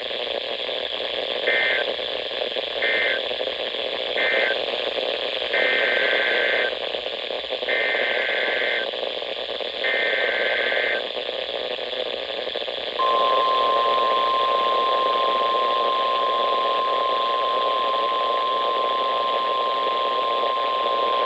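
NOAA Weather Radio EAS/SAME digital bursts over radio static hiss. First come three short end-of-message bursts, then three longer, roughly one-second header bursts announcing the next alert. About two-thirds of the way through, the steady 1050 Hz weather-radio warning alarm tone begins and holds.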